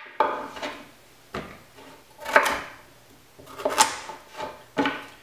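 Chef's knife chopping a raw carrot into pieces on a plastic cutting board: about six sharp knocks of the blade hitting the board, spaced roughly a second apart.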